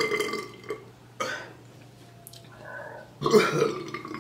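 A woman burping: a long loud burp trails off at the start, a short sharp one comes about a second in, and another loud burp follows a little after three seconds. These are deliberately forced burps.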